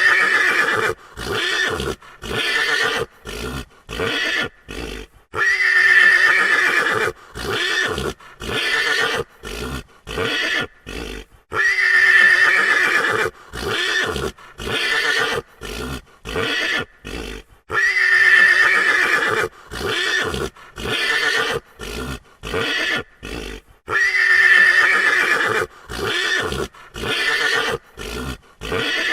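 A frightened horse whinnying over and over: a long, loud neigh followed by several shorter calls, the same sequence repeating about every six seconds.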